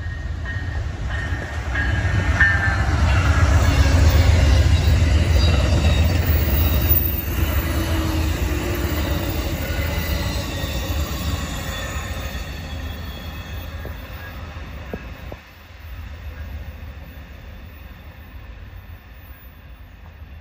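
Amtrak Coast Starlight passenger train led by a Siemens ALC-42 diesel locomotive, passing close by. A deep rumble builds to its loudest as the locomotive goes by a few seconds in, then the bilevel cars run past on the rails and the sound fades as the train pulls away.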